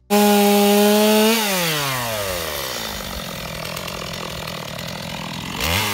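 Chainsaw running at full throttle, its pitch falling after about a second and a half as the engine slows, then running lower and rougher at a log before revving back up near the end.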